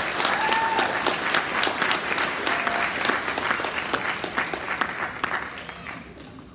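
Audience applauding in a hall, with a voice or two calling out over the clapping early on; the applause dies away in the last second or so.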